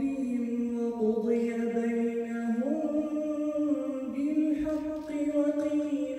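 A man reciting the Quran in the melodic, chanted style, one voice holding long ornamented notes; the pitch steps up about two and a half seconds in.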